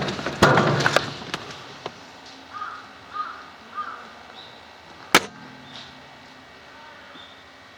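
A sharp crack about five seconds in, the shot of a Maruzen Type 96 airsoft sniper rifle. It follows a noisy burst at the start and three short crow-like caws between about two and a half and four seconds in.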